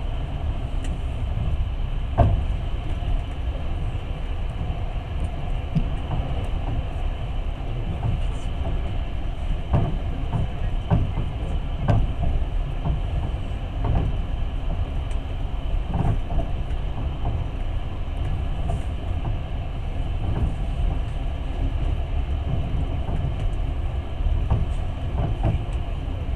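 Passenger train running, heard from inside the carriage: a steady low rumble, with sharp knocks every few seconds as the wheels cross rail joints.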